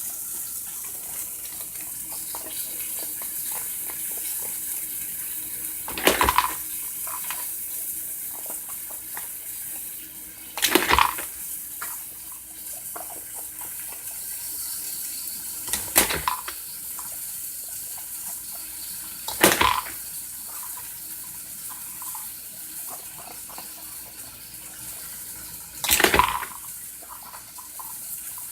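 Water running from a dog's drinking-water valve, with five short loud splashing spurts spaced several seconds apart over a steady hiss.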